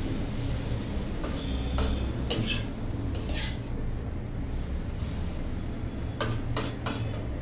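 A spatula scraping and knocking against a metal kadhai as chopped vegetables are stirred and tossed, a cluster of strokes in the first half and a few more near the end, over a steady low hum.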